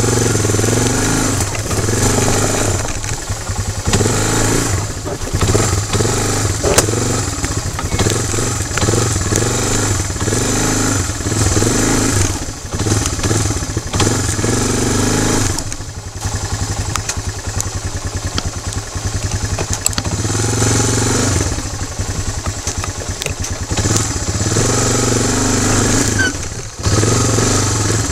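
ATV engine running under way over rough trail ground, the engine note rising and easing with the throttle and dropping back about halfway through, with frequent knocks and rattles from the quad bouncing over the terrain.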